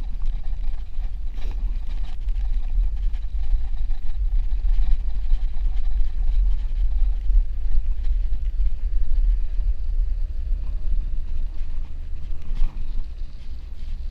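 Steady low rumble of wind on the microphone of a moving bicycle, with faint noise of tyres rolling over packed snow.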